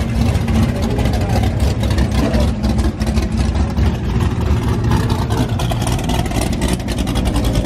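Loud car engines and exhausts running and revving close by: a dense low rumble with rapid pulses.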